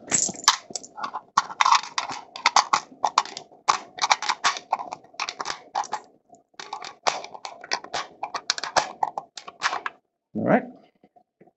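Rifle cartridges being pressed one after another into an AR-15 magazine by hand, a quick irregular run of sharp clicks for about ten seconds, then a short whine near the end.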